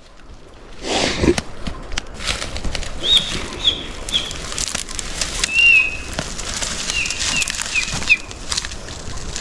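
A bird gives a run of short, high, downward-sliding chirps, about eight of them, starting about three seconds in. Under the chirps runs a rushing noise with irregular flapping or rustling.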